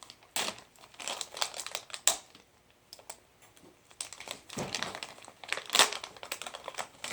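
Plastic packaging of a new motorcycle sprocket crinkling as it is cut open, in short irregular rustles and clicks.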